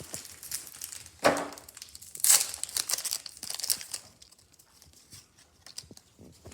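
Foil wrapper of a Pokémon card booster pack crinkling and tearing open, loudest about two seconds in, then dying down to a few faint clicks.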